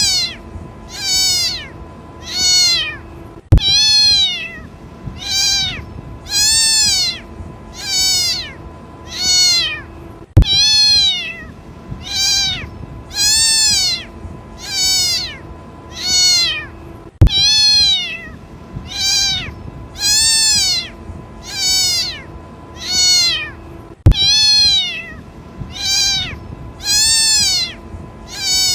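Kitten crying for its mother: a long run of meows, each rising then falling in pitch, about one every one and a half seconds. A sharp click sounds about every seven seconds.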